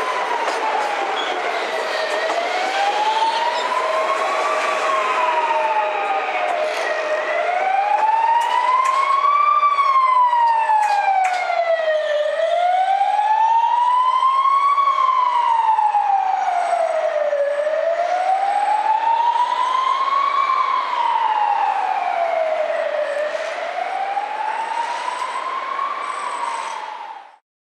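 A wailing siren, its pitch rising and falling slowly and evenly, a full cycle about every five seconds, cutting off suddenly near the end.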